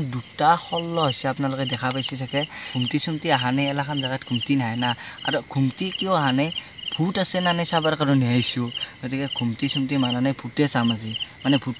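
Night insects, crickets, calling: a steady high-pitched trill with short chirps repeating several times a second, under a man's voice.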